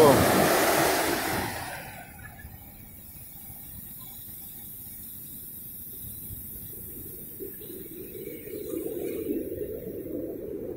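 Ocean surf breaking on a beach: a loud rush of surf for the first second or so, dropping to a muffled low rumble of the waves, which swells again near the end.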